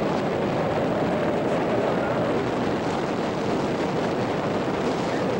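Freefall wind rushing over the camera microphone during a tandem skydive, a steady loud rush with no letup.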